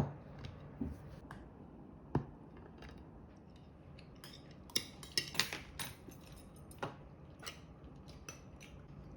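Cutlery clinking against dishes in scattered light taps, with a brief cluster of quick clinks about halfway through.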